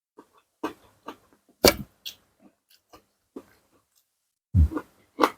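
Close-up eating sounds of a person chewing a mouthful of seafood salad with corn and vegetables: irregular chewing and lip smacks, loudest about a second and a half in and again near the end.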